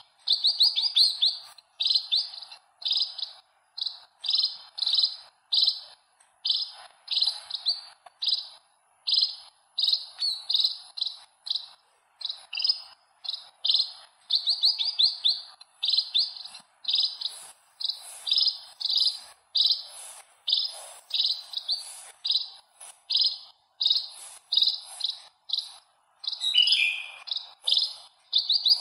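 House sparrow chirping over and over: short, high cheeps in quick bunches, a bunch coming a little more often than once a second.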